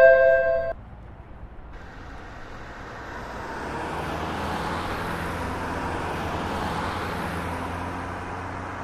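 A chiming tone cuts off under a second in, then a road vehicle's passing noise swells up over a couple of seconds, holds and slowly fades.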